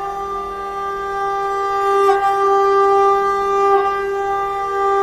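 Closing music: a wind or reed instrument holding one long, steady note, with slight breaks about two and four seconds in.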